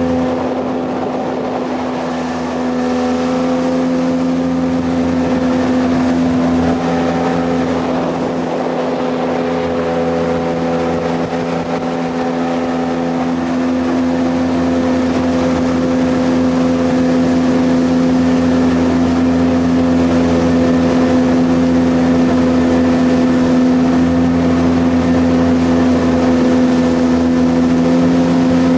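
Jet boat engine running at a steady pitch, with the rush of the hull and water under way.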